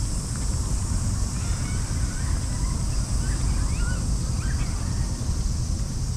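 Outdoor park ambience: wind rumbling on the microphone under a steady high buzz of cicadas in the trees, with a few short bird chirps in the middle.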